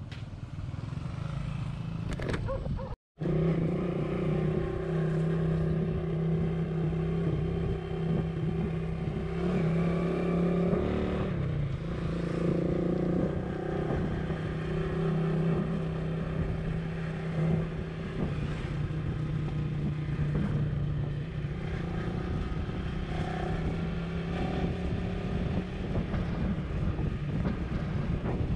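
Motorcycle engine running steadily at cruising speed, with road and wind noise; the engine pitch shifts slightly a couple of times. The sound drops out for an instant about three seconds in.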